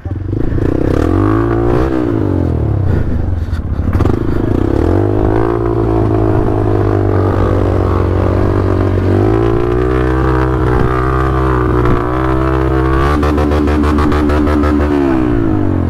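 Dirt bike engine revving hard under load, its pitch rising and falling several times, then holding high for several seconds before dropping away near the end.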